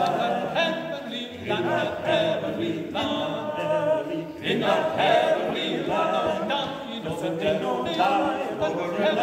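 Male barbershop quartet singing a cappella in close four-part harmony, in phrases of held chords, in the echoing space of a large stone church.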